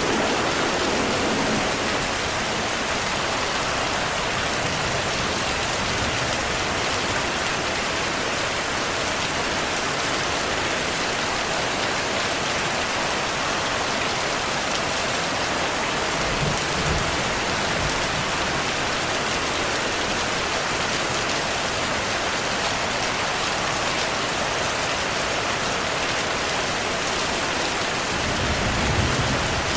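Heavy rain falling steadily in an even hiss. Low rumbles of distant thunder come twice, once around the middle and once near the end.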